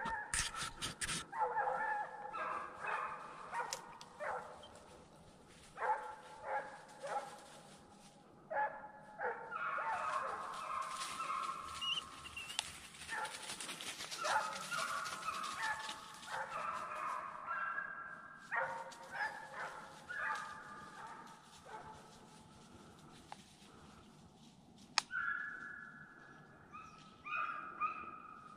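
Deer hounds baying and bawling on the trail of a freshly jumped deer, their drawn-out cries coming again and again, several voices at different pitches overlapping at times. A single sharp crack stands out about 25 seconds in.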